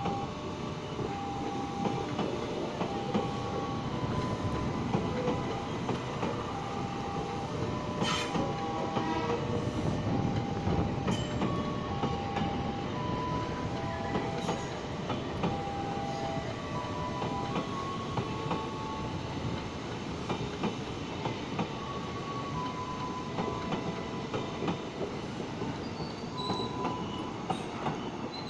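A train rolling past with a steady rumble and the 'jedeg-jedeg' clatter of wheels over rail joints. Occasional sharp clicks and many short high-pitched tones sound through it.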